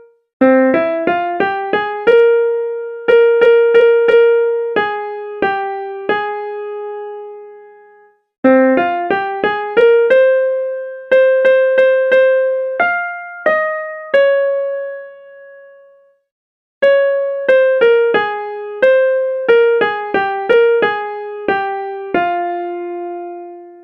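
Music: a slow single-note melody on a piano-like keyboard, each note struck and left to fade. It comes in three phrases, broken by short pauses about eight and sixteen seconds in, and the last note rings out at the end.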